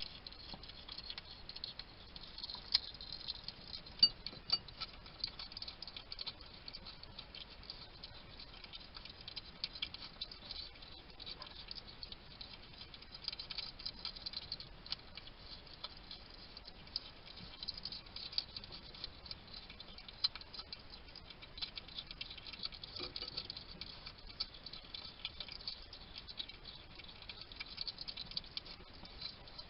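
Wild hedgehog eating: a steady run of small, quick crunching and smacking clicks as it chews its food. A couple of sharper clicks stand out around three and four seconds in.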